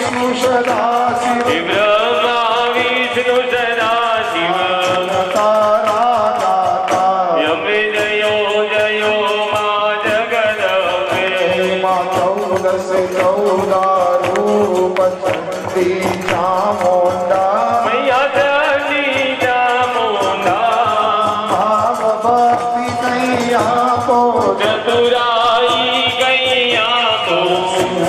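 Hindu devotional aarti music: a sung melody over a steady percussion beat.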